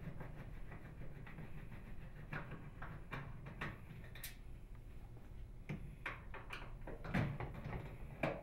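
Light clicks and knocks of a Phillips screwdriver and steel screws on a microwave oven's metal upper door hinge as the screws are unthreaded. There are scattered single taps, with a few louder ones near the end.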